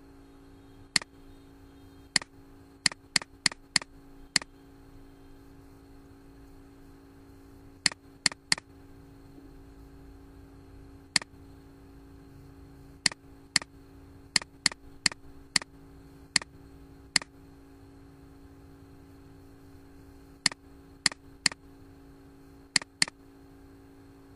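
Computer mouse button clicks, about two dozen sharp clicks, some single and some in quick runs of two to four, over a steady low hum.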